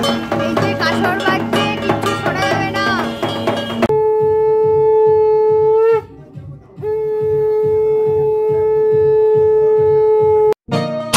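Conch shell (shankha) blown in two long steady notes during a puja: the first rises slightly in pitch as it ends, a short break follows about six seconds in, and the second cuts off abruptly near the end. Music plays before the conch begins, about four seconds in.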